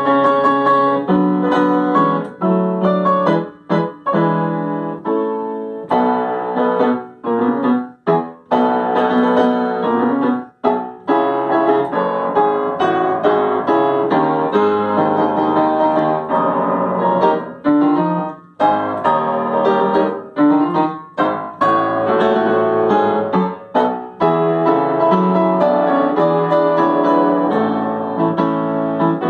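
Solo Yamaha upright piano played at a lively pace, dense runs of notes broken by many brief pauses between phrases.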